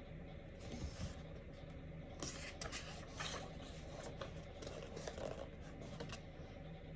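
A page of a thick paperback book being turned by hand: a brief dry paper rustle with a few small flicks a couple of seconds in, over a faint steady room hum.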